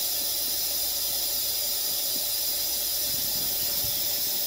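Cold water running steadily from a sink tap down the drain, a continuous hiss, flushing acid drain cleaner out of the trap.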